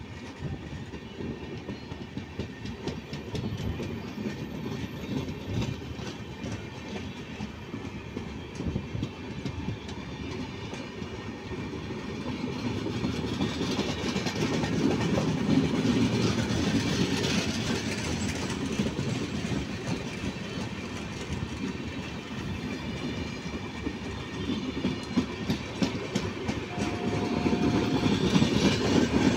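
Rajdhani Express passenger coaches rolling past, a steady rumble with the wheels clicking over the rail joints; it swells about halfway through and again near the end as coaches pass close.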